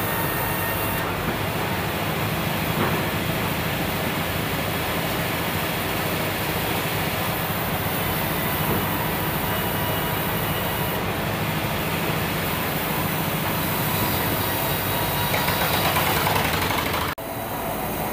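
Steady drone of sawmill machinery running, a low hum under wide noise. It swells slightly, then breaks off for an instant near the end.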